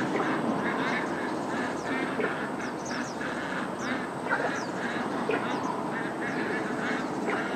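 A dense, continuous chorus of many overlapping animal calls, with a few quick high chirps over it.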